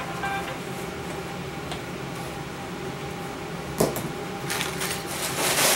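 A low steady hum of a quiet room, a single knock near the middle, then crinkling of brown packing paper in a cardboard shipping box near the end.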